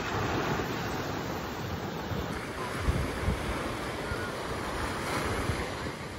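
Small waves washing up and breaking on a sandy beach, with wind blowing on the microphone and a couple of low bumps from it about three seconds in.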